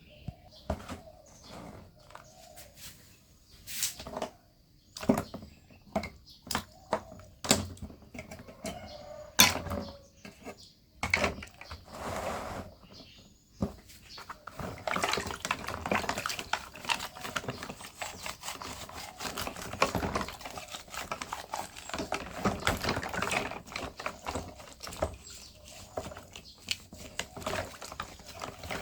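Hand work on metal fan parts: scattered sharp clicks and knocks for the first ten seconds or so, then from about fourteen seconds a continuous rough scraping.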